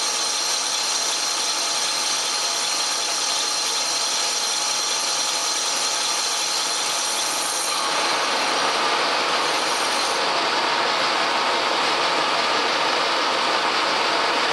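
Pacemaker lathe turning a titanium brake bell with a carbide insert: a steady hiss of the light cut over the lathe's high-pitched whine. About eight seconds in, the sound shifts slightly, the highest tones dropping away and the cut growing a little louder.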